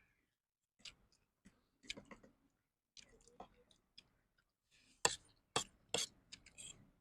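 People eating spicy chicken wings and noodles: scattered short clicks and crunchy chewing sounds, more frequent and louder about five seconds in.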